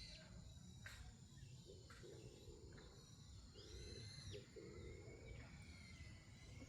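Faint wild birds calling: one arched, high call comes twice, about four seconds apart, and a thin wavering whistle is held through the second half. Under them runs a low, steady rumble.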